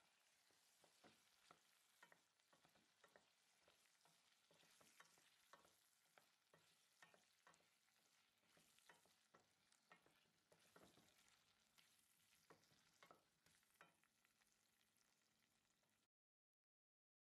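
Potato, carrot and onion chunks frying in oil in a stainless steel pot, with a steady sizzle. A wooden spoon stirs them, making frequent short knocks and scrapes against the pot. The sound cuts off abruptly near the end.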